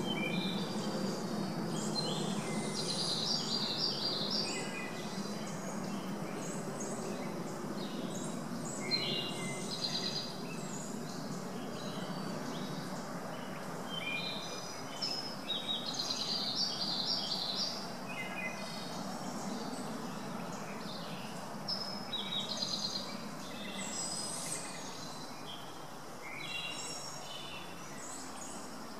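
Small woodland songbirds chirping and singing in short, repeated phrases over a steady background hiss.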